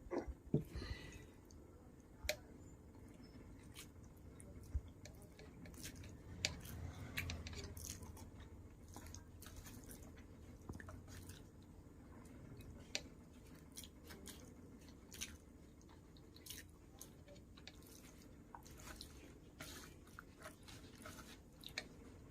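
A person chewing and biting food, with many small crisp clicks and mouth smacks scattered throughout.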